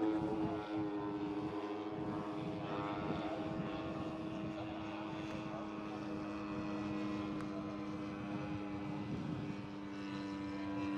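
Twin propeller engines of a giant-scale radio-controlled Grumman S-2 Tracker model, running steadily at an even pitch in flight.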